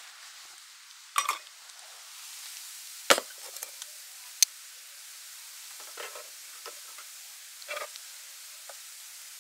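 Sausages and bacon sizzling in a frying pan, a steady hiss of fat. A spatula scrapes and knocks against the pan several times; the loudest clack comes about three seconds in.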